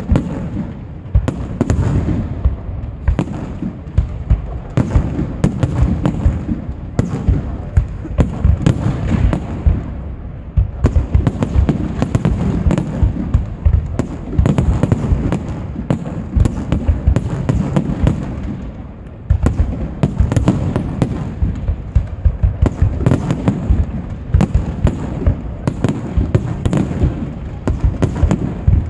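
Aerial firework shells bursting in a dense, continuous barrage, many bangs a second over a rolling rumble, with a brief slight let-up about two-thirds of the way through.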